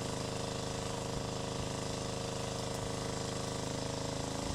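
A motor or engine running steadily: an even, pitched drone with a rapid low pulse that holds at one level and pitch throughout.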